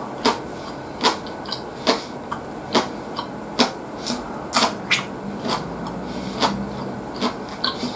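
A man chewing food, a sharp mouth smack a little more than once a second.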